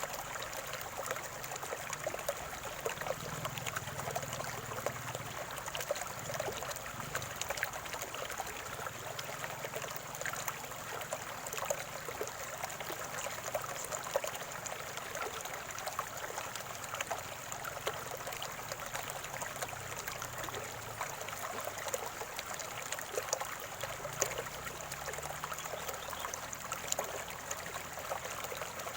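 Small stream of water gurgling and trickling steadily, with many small irregular splashes.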